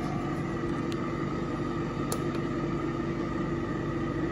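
Pampered Chef air fryer running, its fan and rotisserie motor giving a steady hum, with two faint clicks in the first half.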